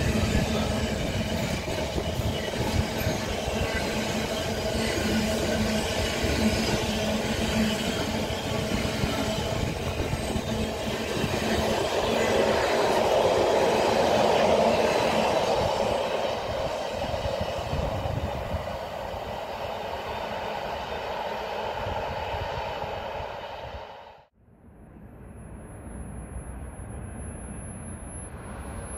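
Intermodal container train's wagons rolling past at speed: a steady rush and rumble of wheels on rail, loudest in the middle, with a low hum in the first few seconds. About four-fifths of the way through, the sound cuts off abruptly. Quieter background noise follows, with a faint high steady whine near the end.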